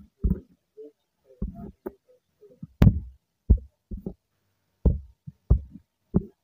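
Irregular dull taps and knocks of writing with digital ink on a touchscreen, about a dozen, with one sharper, louder tap about three seconds in.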